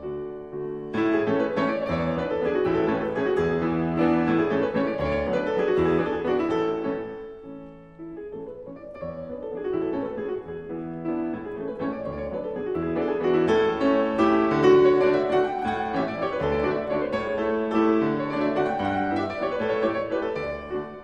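Background piano music, with a brief quieter dip about eight seconds in before the playing picks up again.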